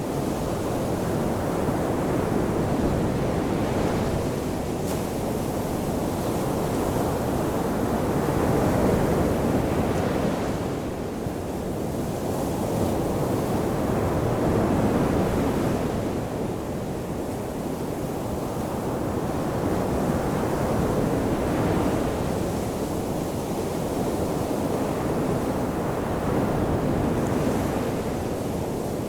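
Ocean surf washing onto a shore, a continuous rush of water that swells and eases about every six seconds as each wave breaks and runs back.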